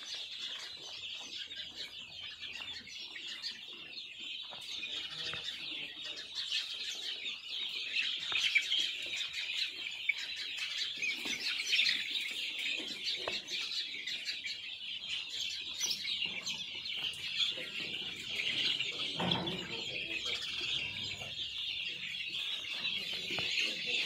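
A large flock of young chicks peeping all at once, a dense, unbroken high-pitched chorus with the odd lower call rising above it.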